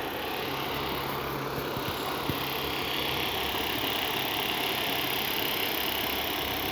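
Dremel rotary tool running steadily, spinning a homemade double rotor, with a low hum and a high whine that grows stronger about three seconds in.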